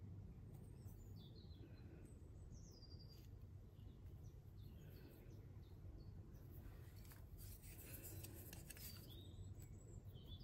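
Faint outdoor quiet with small birds chirping now and then in short falling calls. From about six to nine seconds in come faint scratchy rustles of fingers and a plastic plant label working potting compost in a seed tray.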